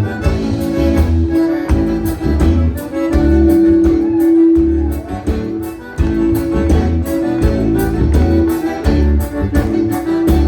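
Live gaúcho band playing an instrumental passage of a bugio: accordion holding long notes over a pulsing bass and a steady strummed beat.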